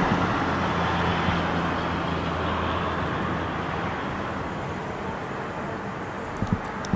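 Road traffic noise: a vehicle's low engine hum fading away over a few seconds under a steady wash of road noise, with a couple of light knocks near the end.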